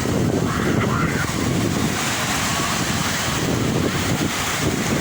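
Sea waves surging and washing onto the shore, a steady rushing noise, with wind buffeting the microphone.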